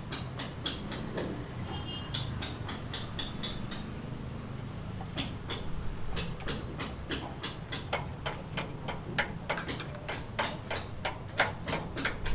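Rapid, evenly spaced sharp clicks or taps, about four a second, with a short break about four seconds in.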